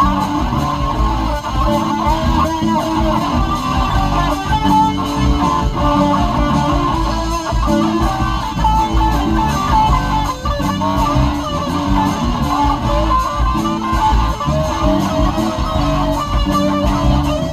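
Band music with guitar to the fore over bass, playing without a break.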